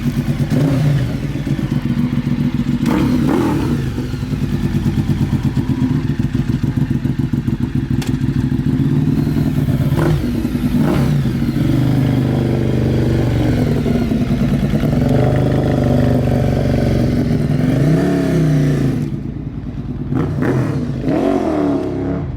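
Ducati 848 L-twin motorcycle engine running under way, its pitch rising and falling with the throttle, then easing off near the end.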